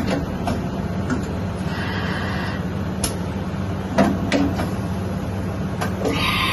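Kasuga Q-600G CNC milling machine running: a steady low hum, with a brief higher whir about two seconds in and several sharp clicks and knocks.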